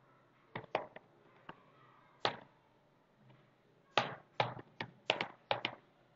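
Computer keyboard keystrokes: scattered single key clicks, a pause of about a second and a half midway, then a quicker run of clicks near the end.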